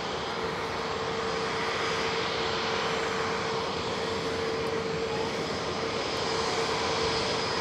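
Airbus A319neo jet engines at taxi power, a steady rushing engine noise with a held whine, slowly growing louder as the jet taxis closer.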